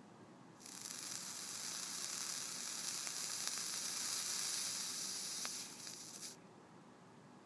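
A freshly wrapped 30-gauge Kanthal A1 coil on an AGA T2 Genesis-style atomizer, fired from a Provari, sizzling steadily as e-liquid boils off its juice-saturated oxidized stainless mesh wick. The sizzle starts about half a second in and stops about six seconds in.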